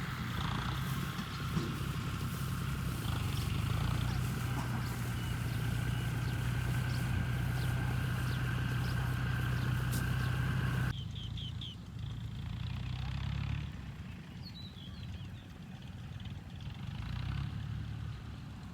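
A motor running steadily with an even hum. It cuts off abruptly about eleven seconds in and is followed by a fainter, uneven motor sound with a few short high chirps.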